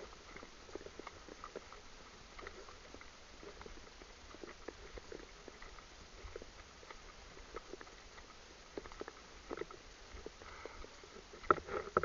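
Horses' hooves on a gravel farm track: a run of faint, irregular crunches and clicks, with a louder click near the end.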